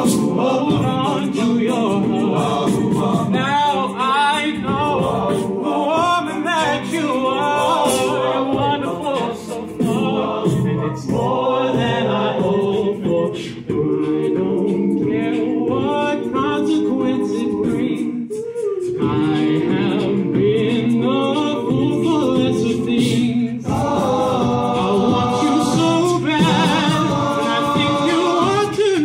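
A cappella group singing in close harmony, a lead voice over the backing voices, with no instruments.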